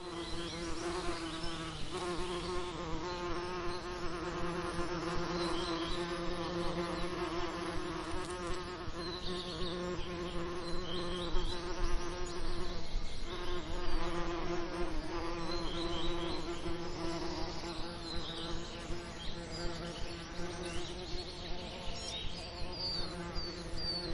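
Bees buzzing close by in a steady, wavering drone, mixed with other insects. Short high bird chirps come in now and then, more often near the end.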